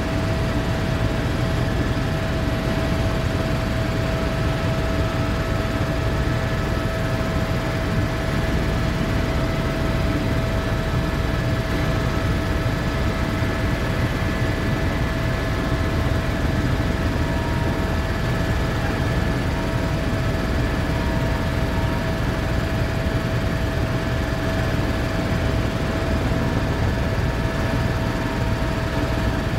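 Helicopter in flight heard from inside the cabin: a steady heavy rumble of rotor and engine with a steady mid-pitched whine over it.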